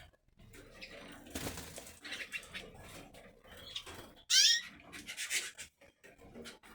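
Caged canaries calling in short chirps, with a louder quick run of sweeping chirps about four seconds in, among faint scattered clicks.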